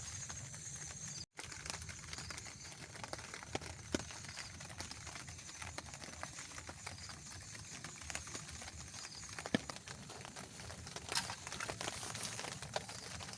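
Forest rain dripping: scattered drops tapping irregularly over a steady wet hiss, with high chirping calls repeating in the background. The sound drops out completely for a moment about a second in.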